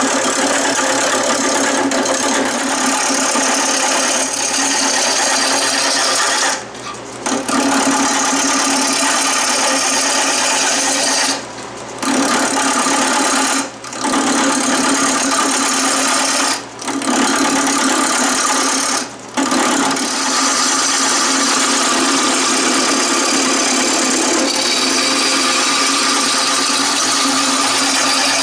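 A wood lathe runs while a hand-held turning tool cuts a spinning wooden handle blank: a continuous scraping, hissing cut over the lathe's steady hum. The cut drops out briefly about five times.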